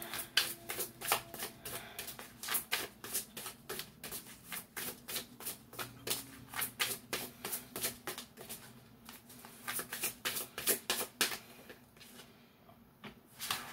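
A deck of oracle cards shuffled by hand: a quick run of card snaps and slides, about four a second, thinning out and stopping about two seconds before the end. The deck is being shuffled to draw the next card.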